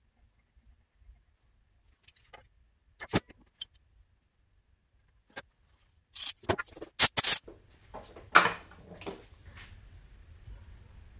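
Hand tools being handled on a workbench: scattered sharp clicks and knocks, with a cluster of loud ones just past the middle, followed by a short scrape. A faint low hum comes in near the end.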